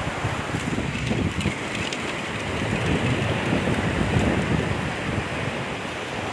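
Wind buffeting the phone's microphone in gusts, over the steady wash of sea surf breaking on a sandy beach.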